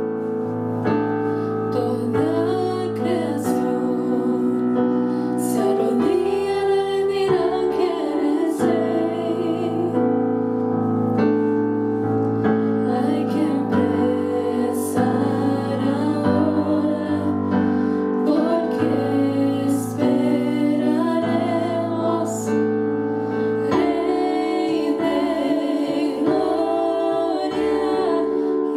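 Three women singing a worship song together into microphones over held keyboard chords.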